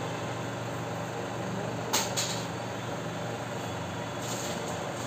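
Steady low hum and rumble of background work noise, with a sharp click about two seconds in and a short soft hiss near the end.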